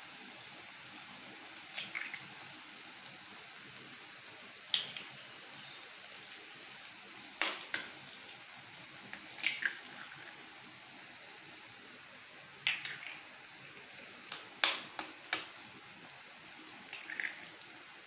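Eggs being cracked into a pan of cooked capsicum and onion: short sharp taps and cracks of eggshell, several in quick pairs or threes, over a faint steady sizzle from the pan.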